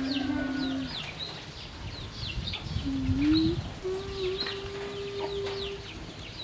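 Chickens: chicks peeping with short, high, falling peeps several times a second, together with a few longer, drawn-out, lower calls.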